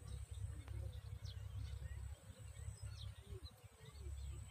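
Faint outdoor ambience: scattered short bird chirps over a low, uneven rumble, with a steady high-pitched whine throughout.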